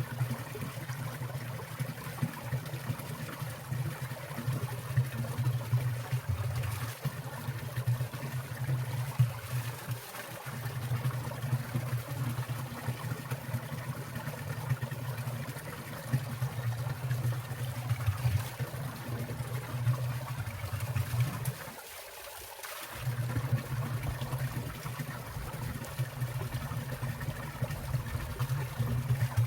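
Water trickling and splashing in a winter valley stream, a steady flow with many small splashes. Under it runs a low rumble that drops out briefly twice, about ten seconds in and again about twenty-two seconds in.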